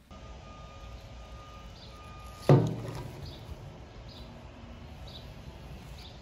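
Outdoor ambience: a steady hiss with faint high chirps repeating about once a second. A single loud thump with a short low ring comes a little over two seconds in, and a faint steady tone stops at that moment.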